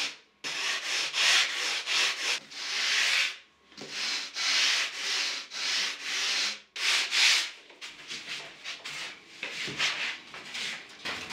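Surfboard blank being sanded by hand in repeated back-and-forth strokes. Long, even sweeps of about a second each give way to shorter, quicker strokes about eight seconds in.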